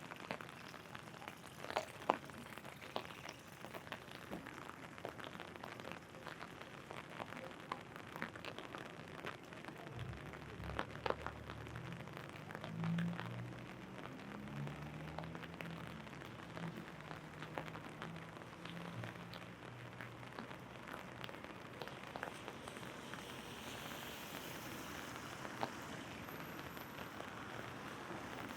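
Rain falling steadily and pattering on an umbrella, with many separate drops ticking sharply on the canopy.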